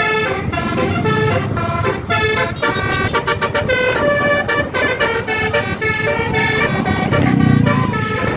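Tour bus 'telolet' musical air horn playing a quick tune of short, changing notes without a break.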